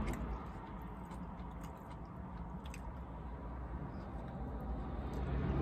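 A person biting into a sandwich and chewing it, with small wet mouth clicks. A low vehicle rumble builds near the end.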